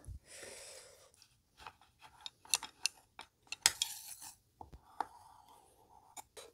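Wooden chopsticks being picked up and handled, giving a series of sharp clicks and taps against each other and the wooden tabletop.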